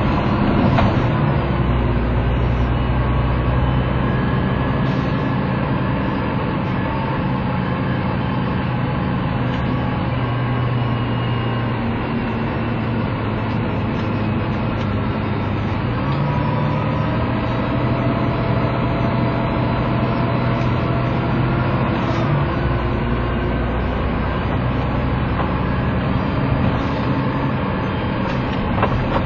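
Diesel engine of an ADS-class three-axle double-decker bus idling steadily while stationary, its low note shifting slightly a couple of times.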